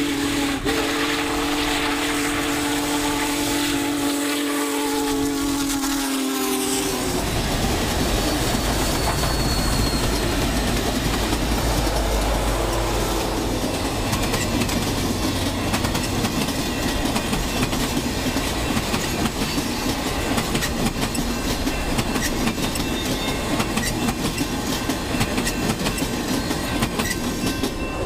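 Steam locomotive chime whistle sounding one long chord for about seven seconds, its pitch sliding slightly down as it passes. Then the rumble and clickety-clack of the Union Pacific steam excursion train and its passenger cars rolling by, dying away at the end as the last car clears.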